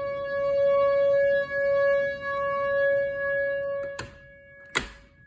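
Outdoor tornado warning siren sounding a steady-pitched tone that swells and fades slightly in loudness, then drops off sharply about four seconds in. Two sharp clicks follow near the end.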